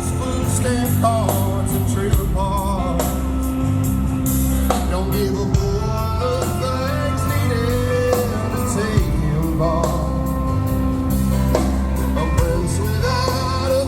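Live rock band playing an instrumental break: a lead melody of bent, wavering notes over steady bass and drums.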